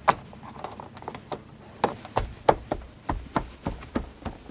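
About a dozen irregular sharp taps and knocks as a hand presses and taps the rubber beading and plastic trim of the car back into their seats, coming faster from about halfway through.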